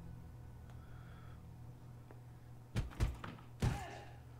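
Faint room tone, then three dull thumps close together near the end: blows struck on a rubber training dummy.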